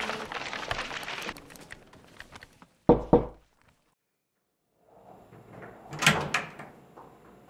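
Two heavy, sharp thuds in quick succession about three seconds in, like a door shutting. Then a second or so of dead silence, faint room tone, and a door latch and handle clicking about six seconds in.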